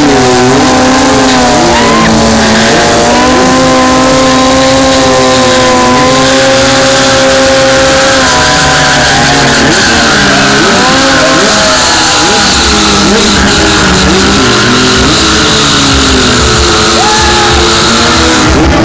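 Sportbike engine held at high revs through a stunt burnout, its pitch dipping and climbing again several times as the throttle is worked, with the spinning rear tyre adding a rushing hiss from the middle on. Very loud.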